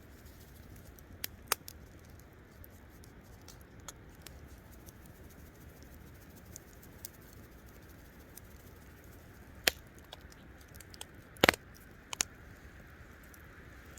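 Wood campfire burning with a steady low hiss and a handful of sharp pops scattered through, the loudest about three-quarters of the way through.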